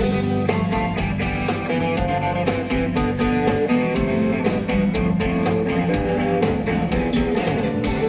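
Live rock band playing an instrumental passage, guitar to the fore over a steady drum beat.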